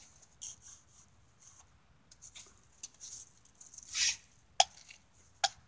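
Wet, slushy snow crunching and scraping as it is scooped up with a red plastic snowball tool, in short scratchy bursts with a longer scrape about four seconds in. Two sharp clacks follow near the end.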